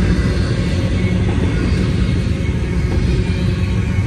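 Double-stack intermodal freight train's container-laden well cars rolling past close by: a steady, heavy rumble of steel wheels on rail.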